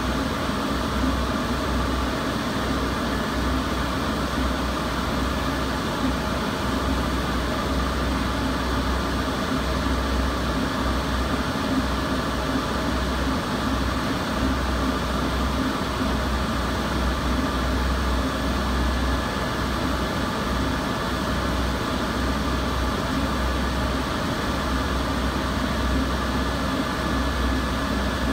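Laser engraving machine running as it engraves cherry wood: a steady whirring noise, with a low hum that cuts in and out irregularly.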